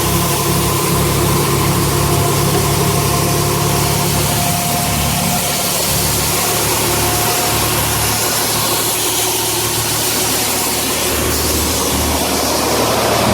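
Farm tractor engine running steadily at working throttle as it drives a grain auger unloading corn, with a faint higher whine over the engine's steady low note.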